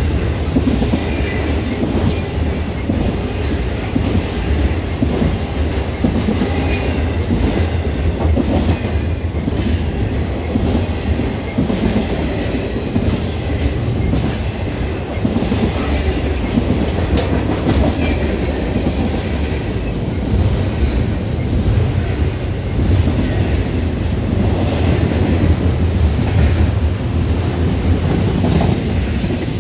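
Railroad cars rolling steadily past, with a continuous low rumble and the clickety-clack and scattered sharp clicks of steel wheels over the rails.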